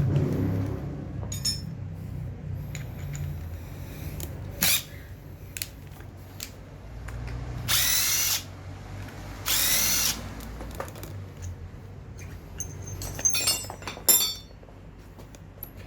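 Power drill running in two short bursts about a second and a half apart, its motor whine rising in pitch as it spins up, after a briefer burst earlier. A few sharp metal clicks and clinks come near the end.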